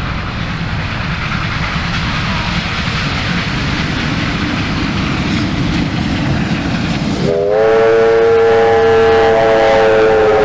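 Double-headed Victorian Railways R class steam locomotives working hard as they approach, their exhaust a steady rushing roar over a low rumble. About seven seconds in, a steam whistle opens with a chord of several notes and is held long and loud.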